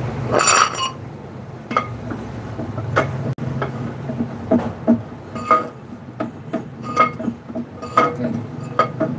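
Steel brake drum of an Isuzu truck clinking and knocking against the hub and studs as it is rocked by hand to work it off. There are short metallic knocks about once a second, each ringing briefly at the same pitch, with a louder, brighter clank about half a second in.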